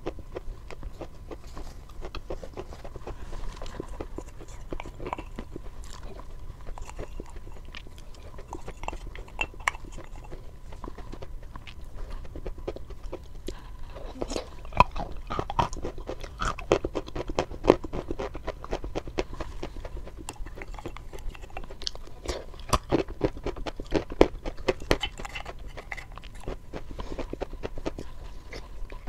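Close-miked eating sounds as a frozen, creamy white dessert is eaten from a wooden spoon: wet mouth smacks, chewing and crunching in a dense, irregular run of clicks.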